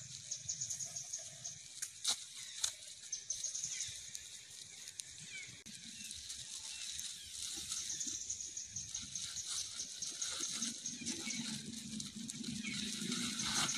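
Young macaques shifting about on dry leaf litter while eating mango, the leaves rustling and crackling, with a few sharp crackles about two seconds in. A steady high-pitched hiss from the surroundings runs underneath.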